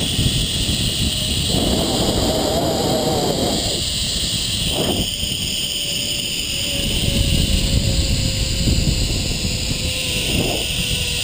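Zipline trolley pulleys running along the steel cable with a steady whine that slowly drops in pitch, over heavy wind rumble on the microphone.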